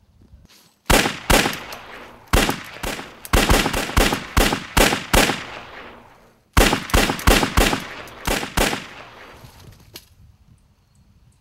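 Pistol gunfire: a long string of rapid shots lasting about five seconds, a pause of about a second, then a second quick string of shots, each crack followed by a short echo.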